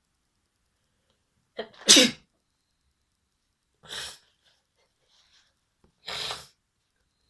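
A person sneezes loudly about two seconds in: a short catch, then a voiced burst that falls in pitch. Two shorter, quieter breathy bursts follow, about two seconds apart.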